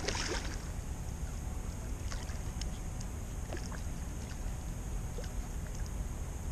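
Steady wind rumble on the microphone, with a brief rustle at the start and faint scattered clicks from a rod and spinning reel as a fish is reeled in.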